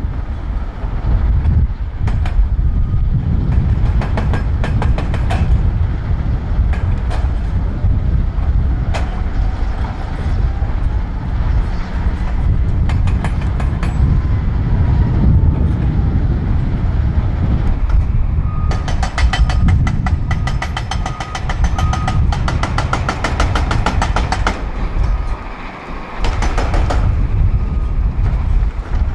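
Heavy quarry machinery running: a wheel loader's diesel engine and the crushing and screening plant make a steady low rumble. About two-thirds of the way through come stretches of fast, even metallic clattering, with short high beeps in places.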